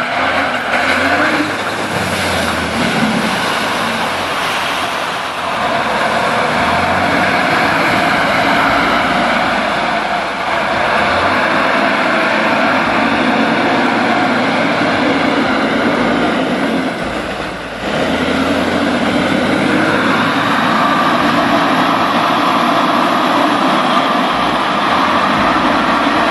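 Star military truck's diesel engine working hard as the truck ploughs through a deep mud-filled rut, running steadily under load. About two-thirds of the way through the engine note drops briefly, then picks up again.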